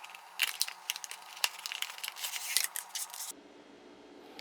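Quick small clicks and rustles of something being handled close to the microphone, stopping about three seconds in.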